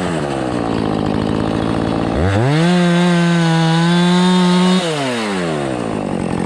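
Husqvarna 450 Rancher 50cc two-stroke chainsaw running at a low speed, then revved up about two seconds in, held at high speed for around two seconds, and let fall back. It is cutting wet logs, and the chain is jamming up, clogged full of wet sawdust.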